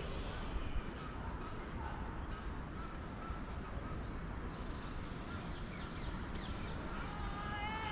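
Birds calling, with a clearer pitched call near the end, over a steady low background rumble.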